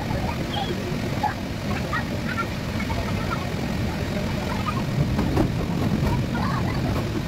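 Steady rumbling hum of an inflatable's electric blower fan, mixed with the plastic wheels of children's ride-on swing cars rolling over a wooden hall floor, with scattered short high squeaks.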